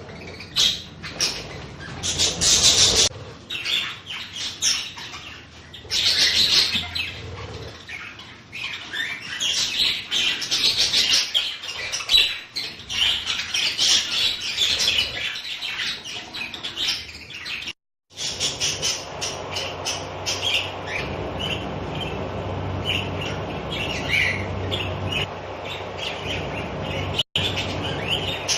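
A flock of budgerigars chattering and chirping continuously, with many short overlapping calls. The sound cuts out for an instant twice.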